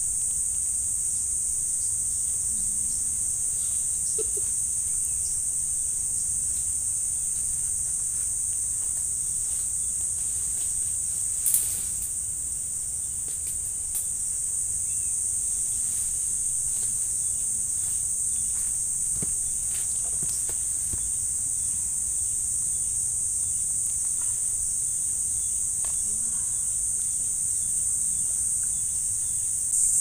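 Steady high-pitched drone of a forest insect chorus, with a single sharp click a little before the middle.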